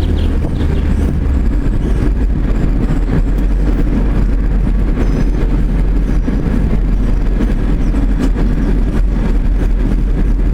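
Steady, loud rumble of a vehicle in motion, heard from inside it.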